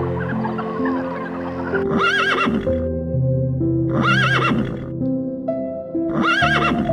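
A horse whinny repeats three times, evenly about two seconds apart, each one the same wavering call. It plays over background music with sustained chords.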